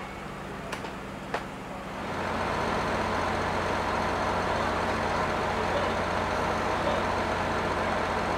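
Engine running steadily, a low hum that steps up in loudness about two seconds in and then holds even, with a couple of faint clicks near the start.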